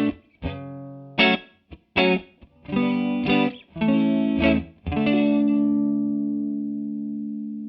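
Electric guitar played through a TC Electronic Corona Mini chorus pedal: a run of short strummed chords, then a chord left ringing from about five seconds in, slowly fading.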